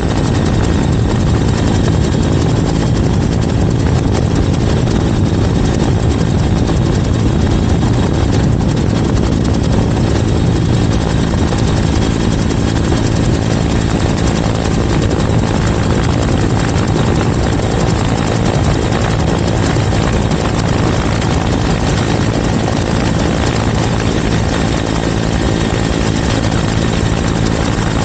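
Helicopter in flight: steady, unbroken rotor and engine noise centred on a low hum, heard close up from a camera mounted on the outside of the aircraft.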